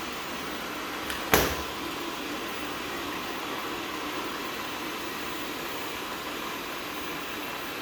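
Viomi V3 robot vacuum-mop running with a steady whirr, with a sharp knock just over a second in.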